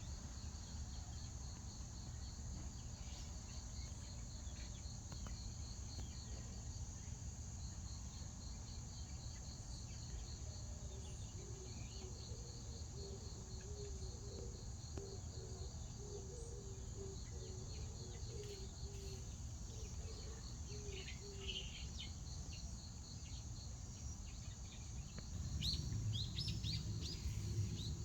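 Outdoor rural ambience: insects chirping in a steady, regular pulsed trill over a low rumble, with scattered bird chirps. The low rumble grows louder near the end.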